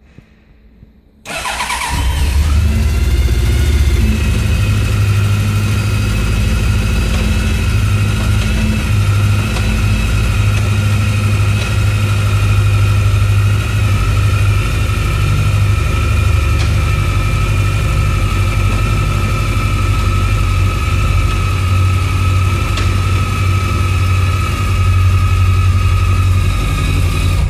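Suzuki GSX1400's inline-four engine started about a second in, catching at once and settling into a steady idle, then shut off at the end.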